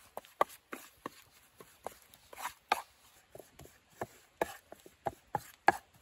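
Wooden spatula scraping and knocking against a small metal frying pan while stirring a flour-and-butter roux as it browns, in short irregular scrapes and taps, two or three a second.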